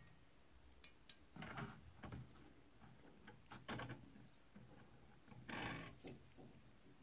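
Faint handling sounds: light clicks and knocks of wire and steel as a rusty draw knife is handled over an electrolysis bath, with a brief splash of water about five and a half seconds in as the blade is lifted out of the solution.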